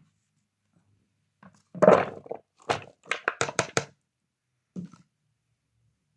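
Kitchen handling noises: a loud thunk about two seconds in, then a quick run of about six or seven sharp knocks and clatters as diced cucumber is tipped from a plastic container into a large plastic mixing bowl, and one more light knock near the end.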